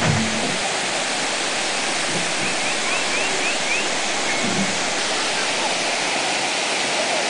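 Waterfall: a steady, unbroken rush of water falling into a pool below.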